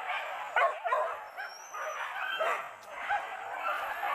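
Pack of boar-hunting dogs yelping and barking together, many short calls at different pitches overlapping without a break: the dogs giving tongue as they chase a wild boar.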